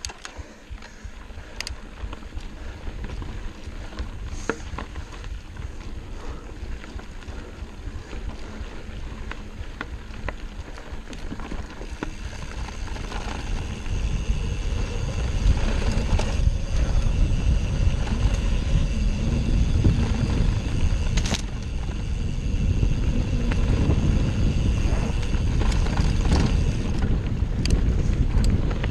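Mountain bike ridden fast over a dirt forest trail: tyre rumble and wind buffeting the microphone, getting louder about halfway through as the bike picks up speed, with a few sharp clicks and rattles from the bike.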